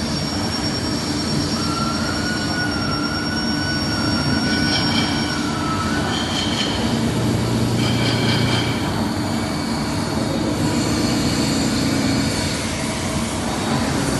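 Mori Seiki MT 2002 SZ CNC lathe running: a steady mechanical noise, with a thin wavering high tone in the first few seconds and a few short high tones around the middle.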